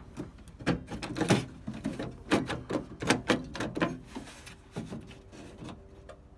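Irregular metallic clicks and clunks from the window regulator assembly of a 1956 Ford F100 being worked loose and swung down inside the hollow steel door, busiest in the first four seconds and sparser after.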